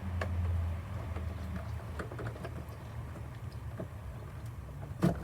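Light plastic clicks and taps of a mass airflow sensor being handled and fitted back into the engine's air intake, with a sharper, louder click near the end. A low hum runs underneath, strongest in the first second.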